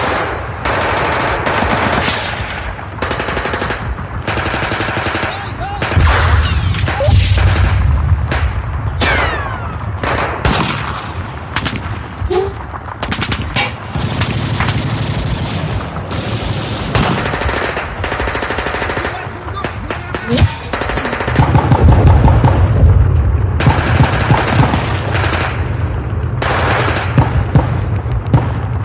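War-battle sound effect: dense, continuous machine-gun fire and gunshots throughout. A heavy deep rumble swells under the gunfire twice, about six seconds in and again just past twenty seconds.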